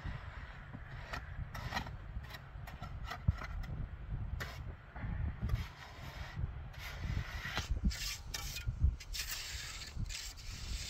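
Hand trowel scraping and tapping through cement mortar on stony ground, in short irregular strokes with sharp clicks.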